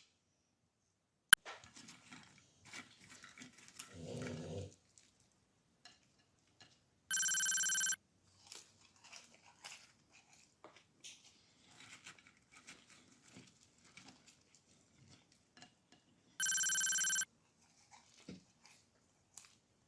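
A dog gives a short low bark or whine about four seconds in, amid faint scattered eating and handling noises. There is a sharp click early on, and an identical electronic beep sound effect plays twice, each for under a second, about nine seconds apart.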